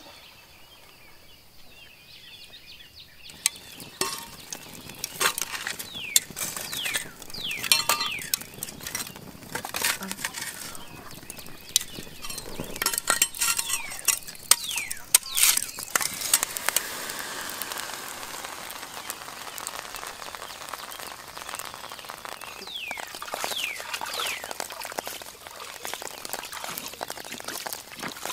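Wood fire crackling, with scattered clicks and knocks, a stretch of steady hiss past the middle, and groups of short falling bird calls now and then.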